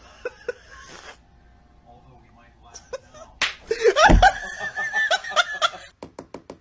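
A sharp slap about three and a half seconds in, then a low thump and about two seconds of high, wavering cries, as a cat swats a chihuahua on a couch and the dog turns on it.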